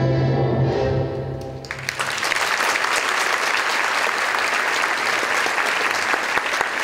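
An orchestra's final held chord fades out, and just under two seconds in an audience breaks into applause that continues at a steady level.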